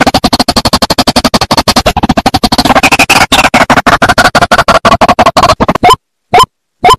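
White-breasted waterhen (kareo, ruak-ruak) calls played as a bird-lure recording: a fast, chattering run of rapidly repeated notes, changing about six seconds in to separate short rising notes, about two a second, with clean silence between them.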